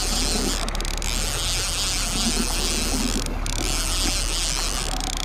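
Steady wind noise buffeting the microphone over the low, even hum of a small fishing boat's motor running at trolling speed.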